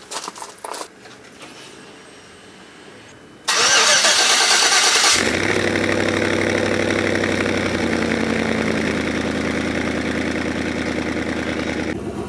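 Pickup truck engine cranking for about a second and a half, then catching and settling into a steady idle. It is being jump-started from a portable booster pack.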